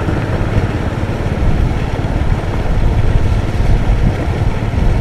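Motorcycle engine running steadily at low speed, heard from the rider's seat, with a rumble of engine and road noise.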